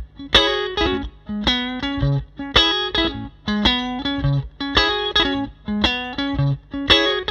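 Electric guitar played through a Bad Cat Classic Pro 20 Reverb, a 6V6-powered black-panel-style tube combo, with no processing on the recording. Rhythmic strummed chords about twice a second, bright and clean-to-lightly-driven, with reverb.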